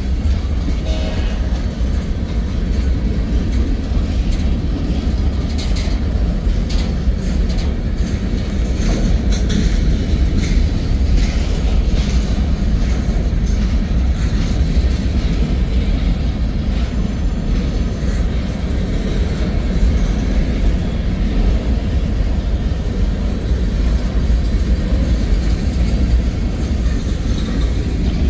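Freight train cars of a mixed manifest rolling past close by: a steady low rumble of steel wheels on rail, with scattered clicks and clacks from wheels and couplers.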